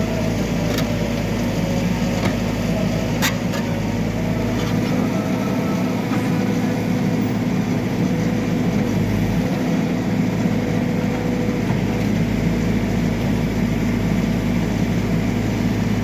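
Backhoe loader's diesel engine running steadily with a low drone, with a few sharp clicks in the first few seconds.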